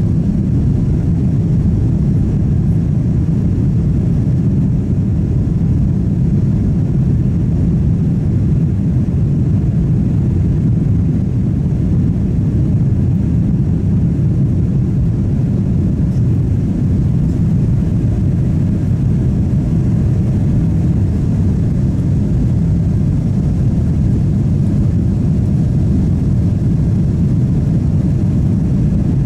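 Steady cabin noise inside a Boeing 777-300 airliner heard from a window seat: a loud, unchanging low rumble of engines and airflow.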